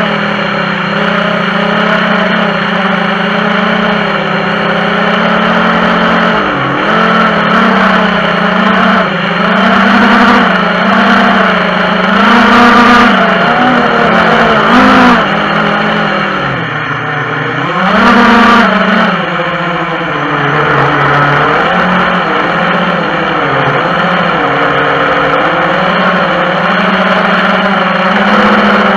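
FPV racing quadcopter's brushless motors and propellers whining, heard loud through the onboard camera. The pitch rises and falls with the throttle, dipping low about two thirds of the way through and surging back up soon after.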